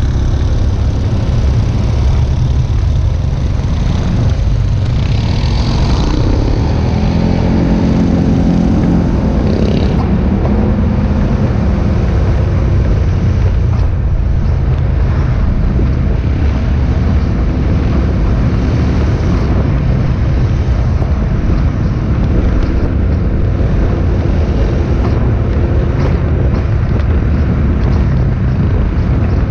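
A continuous stream of motorcycles riding past, engines running in a heavy, steady rumble. Between about six and ten seconds in, one bike passes closer, its engine note rising and then falling away.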